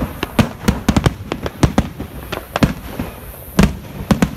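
Fireworks display: aerial shells bursting in a rapid, irregular series of sharp bangs, the loudest a little past halfway.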